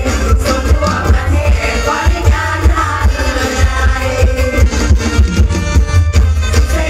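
Live mor lam band music played loud over a heavy, steady bass beat, with a voice singing the melody.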